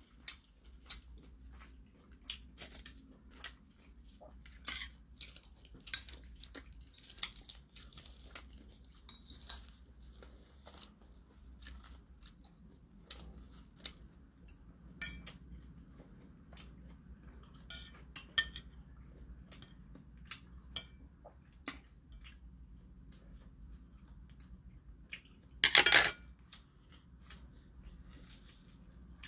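Metal chopsticks clicking and scraping against ceramic bowls and plates, with some chewing. There is one louder, half-second clatter near the end.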